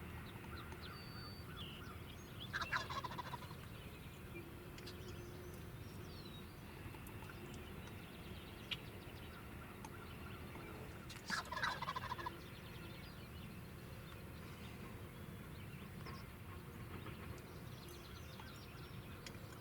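Wild turkey toms gobbling twice, once about three seconds in and again about eleven seconds in, each a short rattling call.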